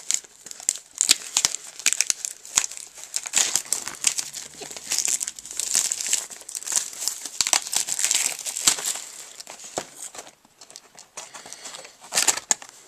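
Clear plastic shrink-wrap being torn and peeled off a cardboard trading-card box, crinkling and crackling. It thins out about ten seconds in, with one last burst of crinkling near the end.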